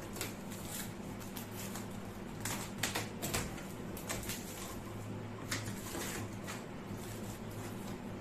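A cardboard box being unpacked: plastic wrap crinkling and cardboard rustling and scraping, with a cluster of louder crackles around three seconds in. A steady low hum runs underneath.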